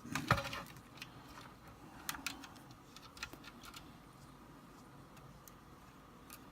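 Scattered small clicks and taps of a keyboard key switch being worked loose from a circuit board, the loudest just after the start and a few more about two and three seconds in.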